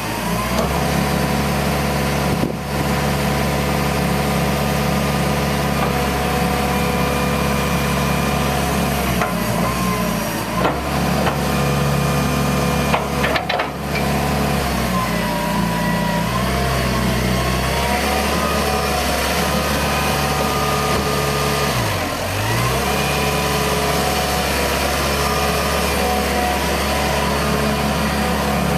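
Hitachi EX120 hydraulic excavator's diesel engine running steadily, its pitch dipping briefly a few times, most sharply about three-quarters of the way through.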